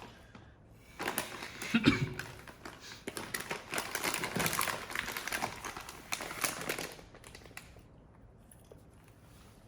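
Dense crackling and crinkling, a rapid run of small clicks, starting about a second in and stopping about seven seconds in, with a brief low thump near two seconds in.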